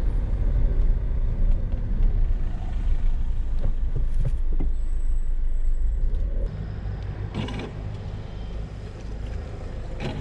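Car road and engine rumble heard from inside the moving car, a steady low drone. It drops noticeably about six and a half seconds in.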